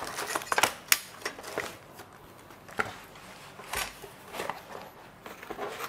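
Parts and packaging of a smart door lock kit being handled: scattered light clicks and knocks, a few sharper ones in the first second and a couple more near the middle.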